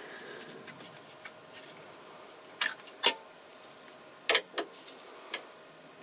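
A handful of short, sharp clicks and knocks, spaced irregularly over a quiet background, as a small turned wooden piece and tools are handled.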